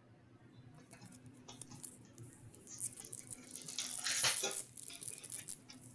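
Hockey trading cards being handled and set down on a table: faint, scattered crinkles and clicks, loudest about four seconds in.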